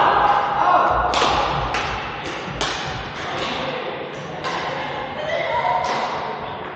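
Badminton rackets striking shuttlecocks: a series of sharp smacks at uneven intervals, with voices in the background.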